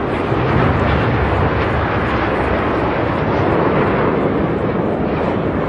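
Jet aircraft flying past at an air display, its engines making a steady rushing roar.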